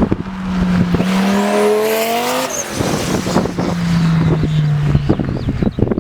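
Straight-piped 2.2-litre turbocharged five-cylinder Audi AAN engine in a racing buggy, running hard under load. Its pitch climbs steeply for about a second and a half, drops abruptly about two and a half seconds in, then holds and sinks slowly.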